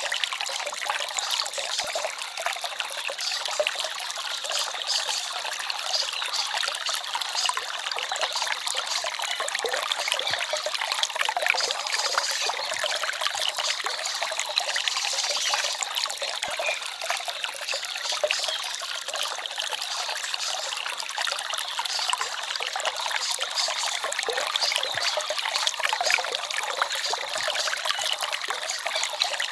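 Small forest stream babbling and trickling over rocks, a steady, light splashing with no deep rumble.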